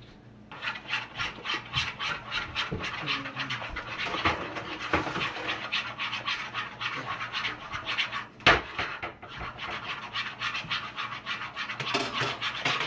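Slime being stirred hard in a bowl: a fast, continuous run of wet scraping strokes, with one sharp knock about eight and a half seconds in.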